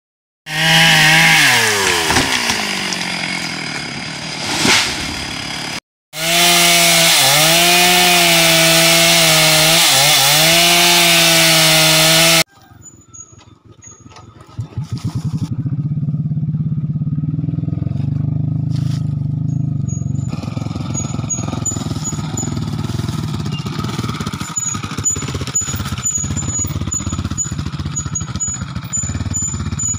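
Chainsaw heard in several abruptly edited segments. First the engine revs and falls in pitch, then it runs loud at high speed with its pitch dipping twice, and after a brief lull it runs steadily at a lower pitch through the second half.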